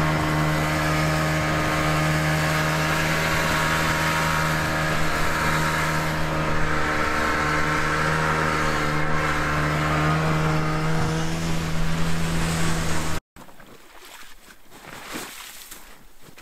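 Snowmobile engine running at a steady speed under way, with a constant drone. It cuts off abruptly near the end, leaving much quieter outdoor sound.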